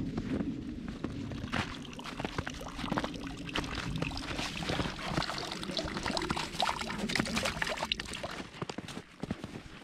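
Water pouring from a pipe spout into a wooden trough, a steady splashing trickle that fades near the end, mixed with short crunching steps in snow.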